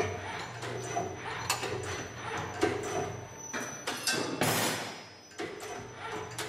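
Eurobend G-Star automatic stirrup bending machine at work: a steady motor hum under repeated clicks and clanks as the bending head swings and bends the wire. A brief hiss comes about four seconds in.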